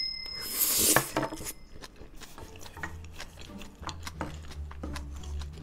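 Close-up eating sounds: chewing a mouthful of bibimbap, with small scattered clicks of a wooden spoon against a wooden bowl. A short rushing noise comes about half a second in.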